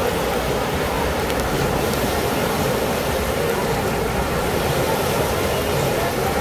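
Artificial waves in a wave pool breaking and washing in, a steady roar of churning water.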